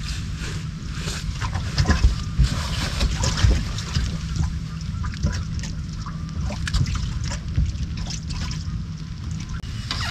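Water splashing and sloshing against a boat hull, with scattered small clicks and knocks over a steady low wind rumble on the microphone.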